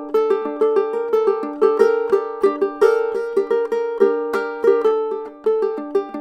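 Ukulele fingerpicked: a flowing melody of single plucked notes over a repeating pattern, with a couple of fast runs of repeated notes on one pitch.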